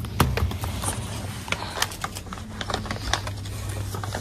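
Scattered light clicks and taps of small goods and packaging being handled at a shop shelf, over a steady low hum.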